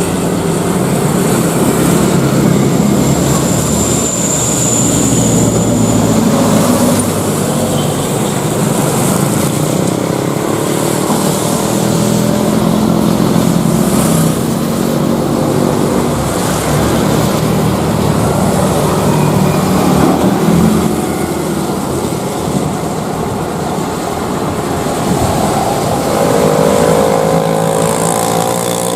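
Jet airliner engines running loud: a steady rumble with a high whine a few seconds in, and engine tones climbing slightly near the end.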